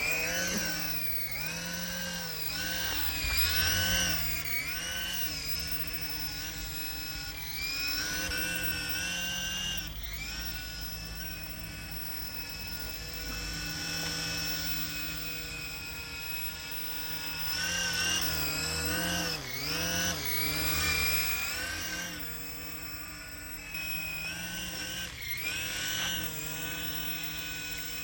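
Small toy remote-control helicopter's electric motor and rotors whirring in flight, the whine's pitch dipping and rising again and again, holding steady for several seconds around the middle.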